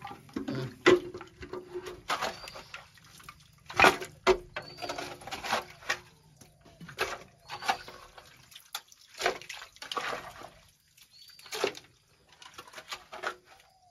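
Hands scooping and splashing muddy groundwater at the bottom of a hand-dug well that has just struck water, in irregular splashes and sloshes.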